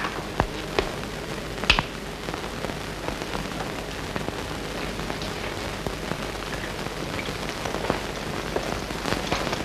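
Steady hiss and crackle of an old film soundtrack, with a few sharp clicks in the first two seconds.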